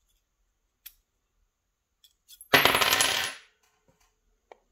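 A small metal lock pin dropped onto the pin tray, a sharp metallic clatter with a brief ringing, about two and a half seconds in. Faint clicks of tweezers on the lock cylinder come before it.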